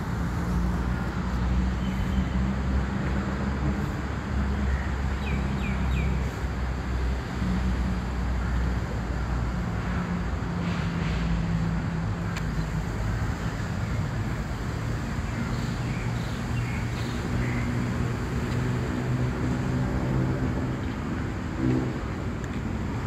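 City park ambience: a steady hum of traffic, with a few short bird chirps now and then.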